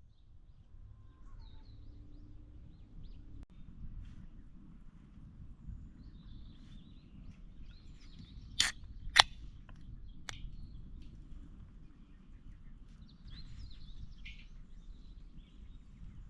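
Birds chirping faintly over a steady low rumble, with three sharp clicks or knocks around the middle, the first two the loudest.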